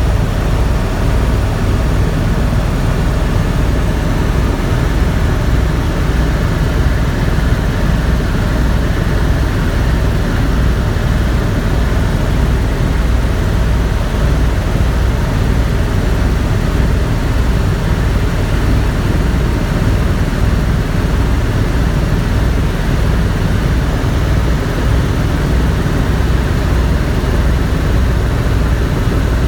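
Helicopter running in steady flight: a loud, unbroken drone of engine and rotor, with a fast low pulsing underneath.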